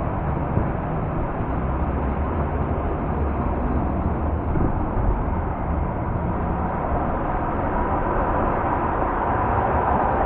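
Steady road and traffic noise heard from inside a car moving in freeway traffic: a low rumble of tyres and engine with an even hiss over it.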